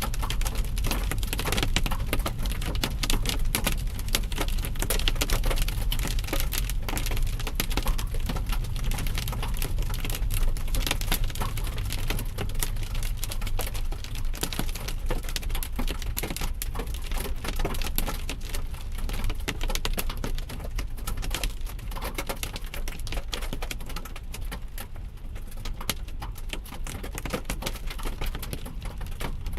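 Hailstones pelting a car, a dense rattle of many small sharp hits, heard from inside the cabin over a steady low road rumble. The hits thin out a little near the end.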